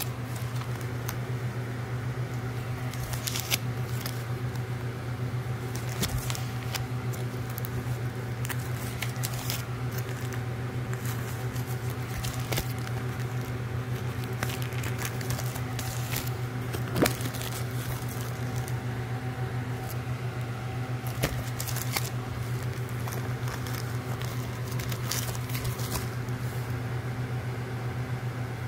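Clear plastic record sleeves crinkling and clicking now and then as 45 rpm singles are handled, the sharpest click about two-thirds of the way through, over a steady low hum.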